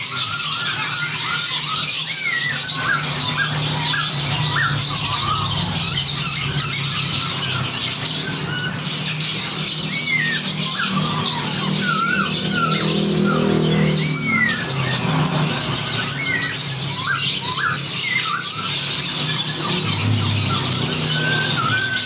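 Many songbirds chattering and whistling over one another in a dense mixed chorus, full of short rising and falling whistled notes, with a steady low hum underneath.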